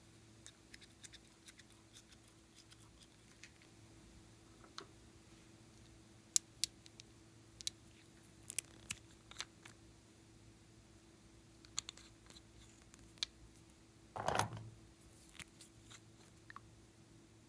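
Scattered light clicks and taps of small plastic toy bottles and their doll-shaped caps being handled and pulled open, with one louder short scuff late on. A faint steady hum runs underneath.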